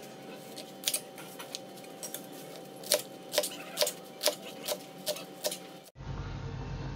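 Knife chopping mustard greens on a plastic cutting board: a few scattered taps, then a steady run of chops at about two a second. About a second before the end the chopping gives way to a steady low hum.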